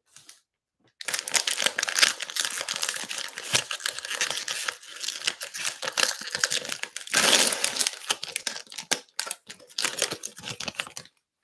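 Cellophane wrapper of a trading card cello pack being torn open and crinkled by hand: a dense crackling that starts about a second in, with a louder tear a little past the middle.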